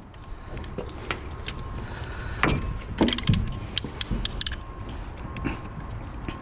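Irregular metallic clicks and rattles of a black banding strap and a hand strapping tensioner being handled as the strap is fitted around a large glass panel, the clicks bunching together in the middle.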